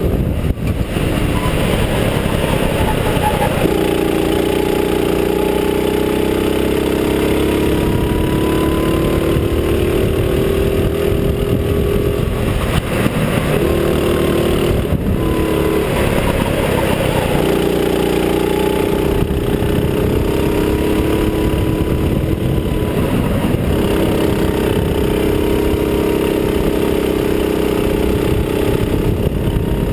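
Go-kart engine running hard at speed, its note dropping away and picking up again a few times through the corners, with a steady rush of wind noise over it.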